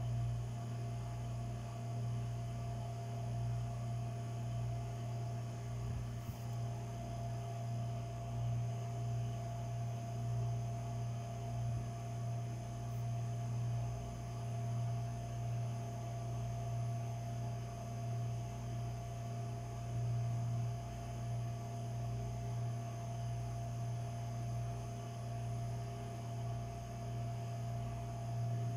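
Steady low hum with a fainter, higher steady tone above it and an uneven low rumble beneath.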